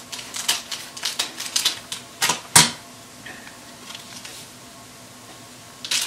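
Small scissors snipping at a plastic seasoning sachet: a run of quick, crisp clicks and cuts, the loudest about two and a half seconds in, with another click near the end.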